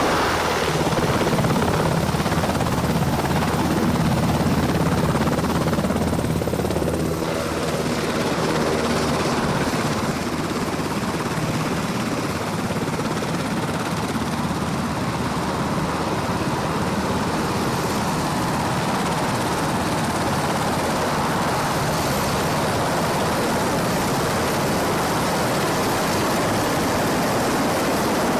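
UH-60 Black Hawk helicopter running close by, its rotor and turbine noise loud and continuous as it hovers in low and then sits with rotors turning. A low rotor thrum is strongest in the first several seconds, then settles into an even rushing wash.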